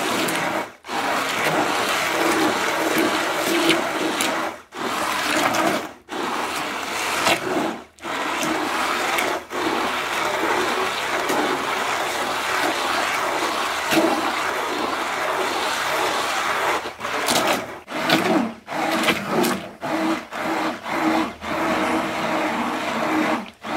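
Hand-held immersion blender puréeing a large pot of cooked tomatoes: the motor runs with a steady hum over wet churning and sloshing of the sauce. It cuts out briefly a few times, then over the last six seconds or so is switched on and off in short pulses about every half second.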